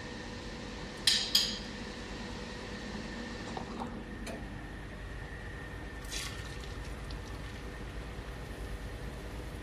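A metal fork and a ceramic bowl clinking: two sharp clinks about a second in, then a few lighter taps, over a steady background hum.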